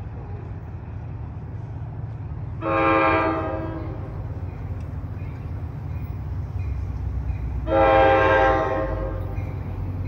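An approaching NJ Transit Main Line commuter train sounds its locomotive air horn twice. Each blast lasts about a second, about five seconds apart. A low, steady rumble from the train runs beneath.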